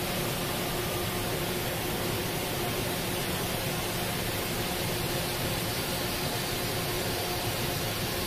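Pietro Carnaghi ATF-14 TM CNC vertical turn-mill center running with a milling tool in its head: a steady hiss with a faint hum under it.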